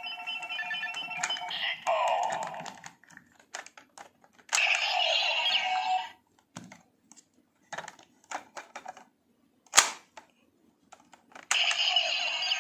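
Kamen Rider Zi-O DX Ziku Driver toy belt with the Ohma Zi-O Ridewatch playing its electronic sound effects and announcements in several bursts through a small, thin-sounding speaker. It opens with a string of steady electronic beeps. Between the bursts come sharp plastic clicks as the Ridewatch is handled and the driver is tilted, with one loud snap partway through.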